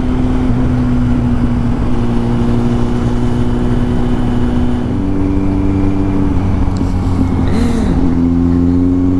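Kawasaki Z800's inline-four engine running at steady cruising revs under constant wind noise, its note shifting about five seconds in and climbing again near the end.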